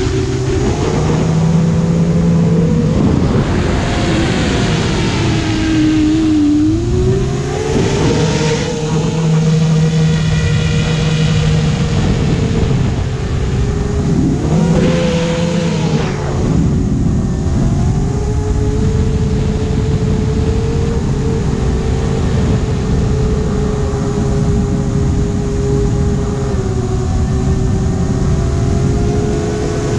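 Electric motors and propellers of a homebuilt multirotor drone whining in flight. The pitch rises and falls with throttle, with sharper upward swells about eight seconds in and again about fifteen seconds in.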